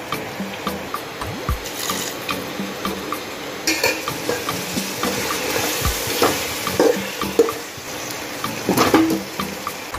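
A metal spoon stirring and scraping spiced chicken pieces in an aluminium pot, with clinks against the pot's side that grow louder and more frequent in the second half.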